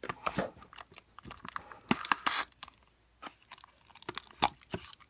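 Cardboard advent-calendar compartment and the small wrapped pack inside it rustling and clicking as fingers work the item out of its door. The sound is a run of irregular sharp clicks and short rustles, loudest about two seconds in.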